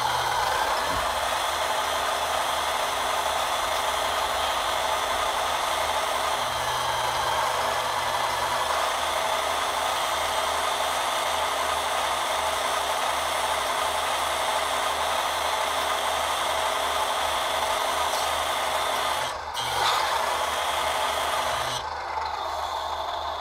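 Hydraulic pump of a ScaleART RC truck's Palfinger loading crane running steadily as the crane slews and lifts a pallet, a continuous mechanical whir with a low hum that comes and goes. It dips briefly about 19 seconds in and changes tone near the end.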